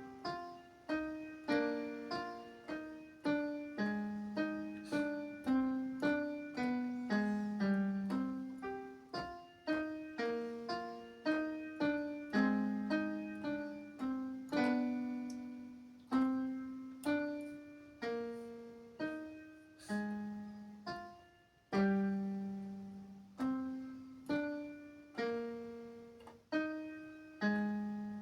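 Background music: a gentle piano-like keyboard melody, single notes struck one after another at about two a second, each fading away.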